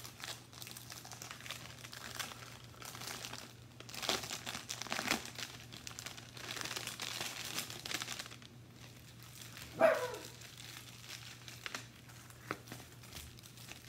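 Clear plastic packaging bags crinkling and rustling as they are handled and opened, louder in patches, with one short sharp sound about ten seconds in.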